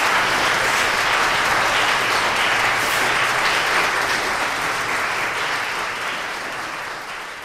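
Audience applauding, a dense steady clapping that fades gradually over the last few seconds.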